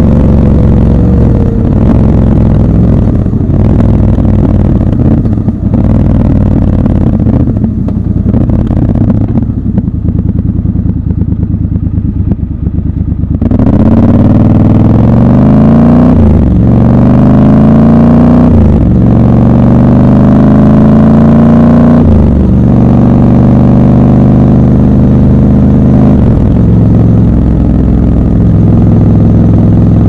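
Triumph Scrambler 1200 XC's parallel-twin engine heard from the rider's seat. It runs steadily at low revs for the first half. About halfway through it pulls away hard, the revs rising and dropping back at each of three upshifts, then it settles into an even cruise.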